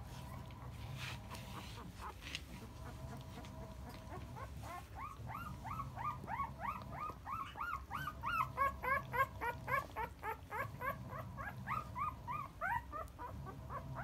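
A ten-day-old Akita puppy crying: a run of short, high, rising-and-falling squeaks, about three or four a second, that begins about four seconds in and grows louder.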